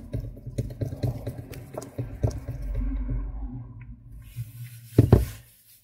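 A small hand screwdriver tightening a screw into the plastic cover of a Canon 337 toner cartridge: a run of small scratchy clicks over a low hum, then one louder knock about five seconds in.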